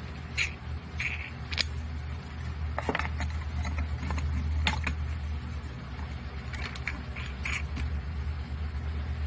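Homemade wheel clamps being handled and fitted: scattered clicks, taps and short scrapes of threaded rods, metal washers and wooden wheels, over a steady low hum.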